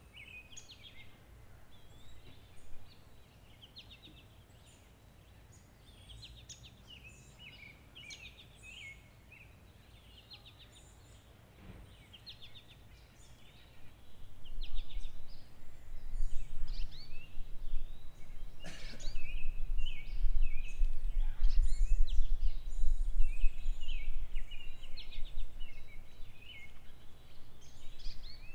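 Many small birds chirping and calling in a busy chorus. A low rumble sets in about halfway through and becomes the loudest sound.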